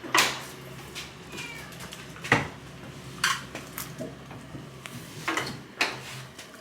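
A handful of sharp clinks and knocks over a low steady hum, with a cat meowing faintly now and then.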